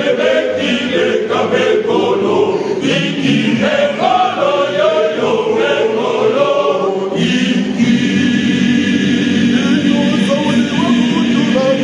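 Choir of men and boys singing together; about seven seconds in the voices settle onto a long held chord.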